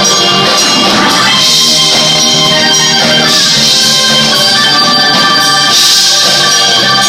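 Live band playing a rock song, loud and steady, with drums.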